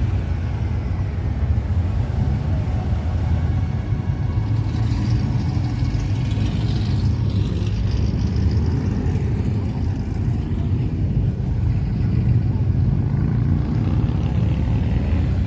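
Steady low rumble of vehicle noise, with no sharp events.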